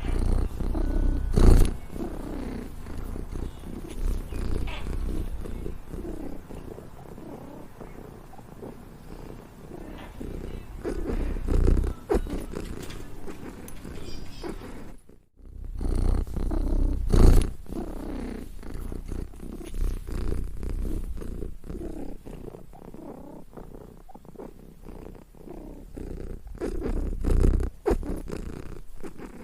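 Domestic cat purring close up, a steady low rumble that swells louder a few times and breaks off briefly about halfway through.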